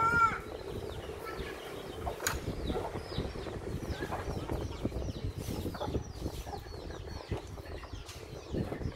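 Chicks peeping over and over in short, high falling chirps, with a hen giving one loud call right at the start. Soft low knocks from a wooden pestle in a wooden mortar sound underneath.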